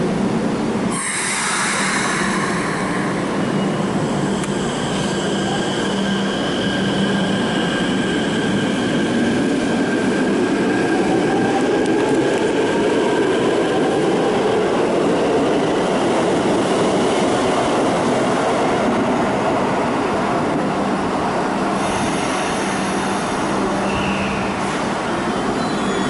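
Keikyu electric train at an underground platform: a burst of hissing air about a second in, then the train's motors whining and rising in pitch as it pulls away, over a steady rumble with some wheel squeal.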